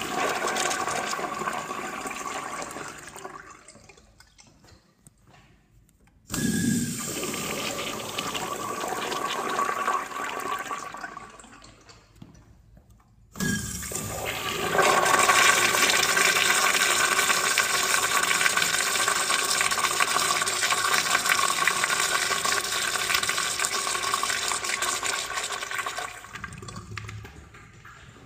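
Urinal flushing several times: the rush of one flush fades out in the first few seconds, a second flush starts suddenly about six seconds in and dies away by about eleven seconds, and a third starts suddenly about thirteen seconds in and runs longer and louder before tapering off near the end.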